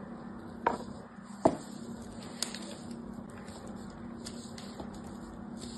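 A bar of hard soap being handled and set down, with two sharp clicks in the first second and a half and a smaller one soon after. Then faint light scratching and ticks as a fingernail scores thin lines into the soap's surface.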